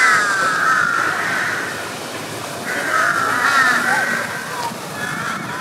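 Crows cawing in harsh, slightly falling calls: a long bout at the start, another about three seconds in, and a shorter one near the end.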